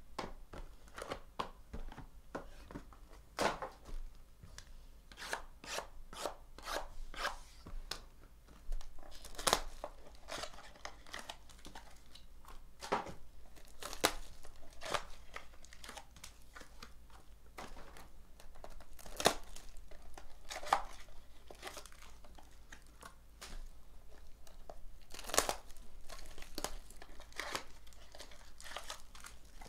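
Clear plastic shrink-wrap being torn and crinkled off a sealed trading card box, in an irregular run of crackles with a few sharper snaps.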